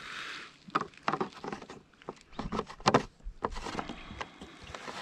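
Plastic water jug being handled and its spigot cap fitted: a string of irregular hollow knocks and clicks, with a brief hiss of water at the start.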